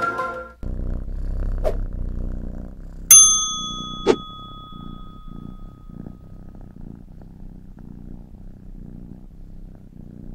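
Cartoon sound effects: a cat's purr, a low rumble that pulses a few times a second, with one bright bell ding about three seconds in that rings out for a couple of seconds. A flute tune cuts off just before the purr begins.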